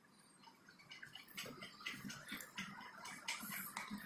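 Faint, irregular small ticks and soft rustling of fingers handling a few axial-lead diodes and their paper tape on a sheet of paper, starting about a second in after a moment of near silence.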